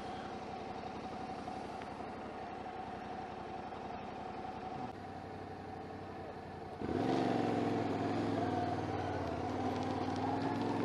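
Motorcycle engine idling steadily; about seven seconds in, a second adventure motorcycle's engine comes in louder and closer as it rides up.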